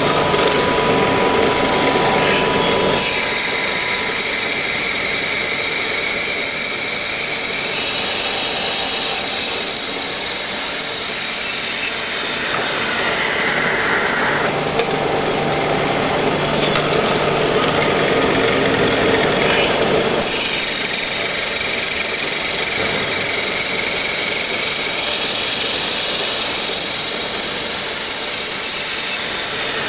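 Automatic lathe running and cutting, a loud continuous machining noise. It alternates between two distinct phases, one with a high hiss and one with a lower hum, changing every eight or nine seconds as the machine works through its cycle.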